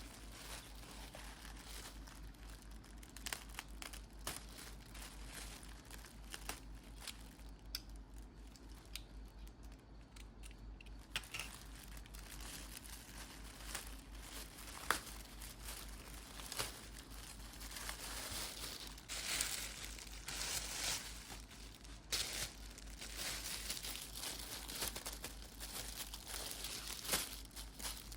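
Packaging being crinkled and torn open by hand, in irregular crackles and rips that grow busier in the second half.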